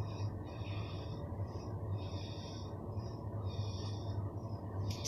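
Snoring: short, high, wheezy snorting breaths that repeat about once or twice a second, over a steady low hum.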